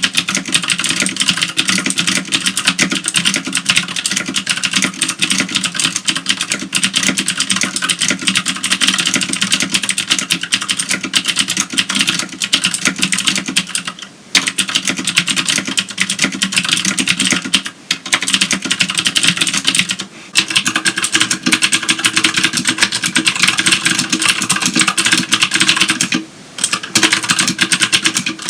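Continuous fast typing on a CM Storm QuickFire Stealth keyboard with clicky Cherry MX Green switches, pausing briefly twice. About twenty seconds in it stops, and typing resumes on a Filco Majestouch Tenkeyless with clicky Cherry MX Blue switches, which sounds different.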